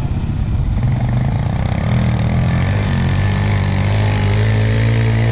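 Honda ATV engine running at a steady low speed as the quad crosses soft sand close by. The note grows a little louder and steadier over the second half.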